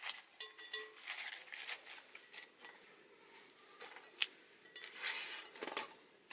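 Objects being handled: scattered light clicks, clinks and rustles, with one sharp click about four seconds in.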